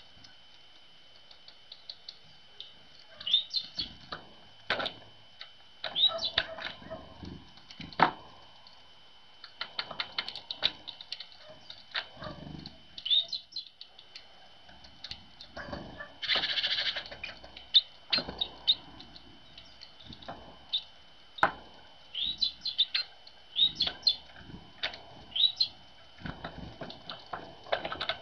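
Great tits calling with many short, high chirps and twitters, mixed with sharp taps and wing flutters, and a brief louder rushing flutter about halfway.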